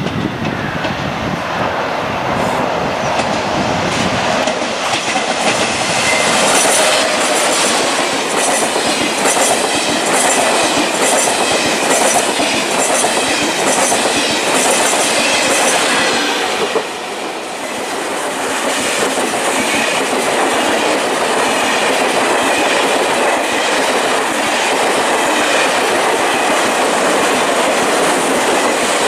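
A train passing close by at speed: a continuous rush of wheel and rail noise with a regular clickety-clack of wheels crossing rail joints. The noise briefly drops about 17 seconds in, then carries on.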